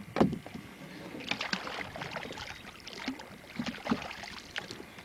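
A stringer of fish being hauled up out of the water beside a boat: water splashing and dripping off the fish, with a sharp knock against the boat near the start.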